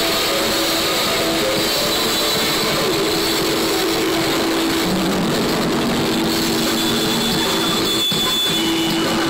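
A live heavy rock band playing loud through a PA system, recorded so overloaded that the music blurs into a dense, distorted roar, with a few low notes held steady.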